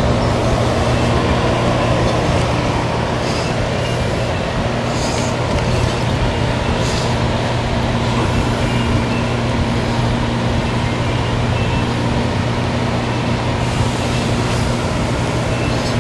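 Electric pedestal shop fan running steadily with an even hum and rush of air, with a few faint clicks of engine parts being handled.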